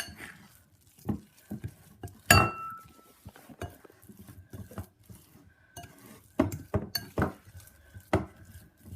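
Fork scraping and knocking against the sides of a bowl while mashing and mixing a thick sardine-and-flour dough, in irregular clinks, one sharper knock with a short ring about two seconds in.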